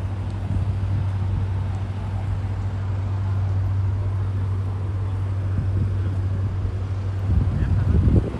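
Street sound dominated by a steady low mechanical hum, with a louder rumble swelling near the end.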